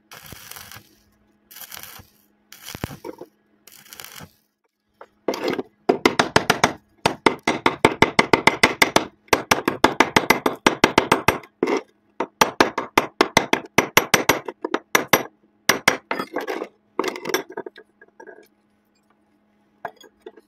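Short bursts of electric arc welding on steel rebar, then rapid metallic tapping and scraping as slag is knocked off the fresh weld bead. The tapping thins out to a few scattered knocks near the end.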